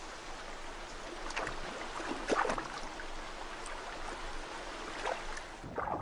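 Shallow stream water running, with a few brief splashes.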